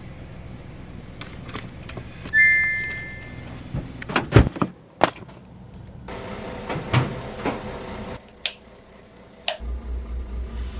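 A car's power tailgate sounds its electronic warning beep, about a second long, then slams shut with a heavy thud, followed by a few smaller knocks. Near the end comes a low, pulsing throb.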